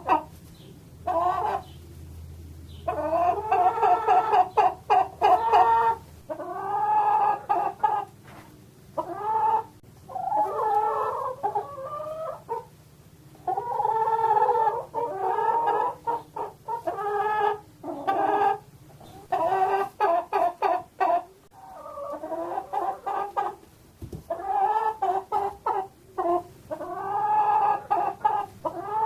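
Chickens clucking and squawking in repeated runs of calls with short pauses between.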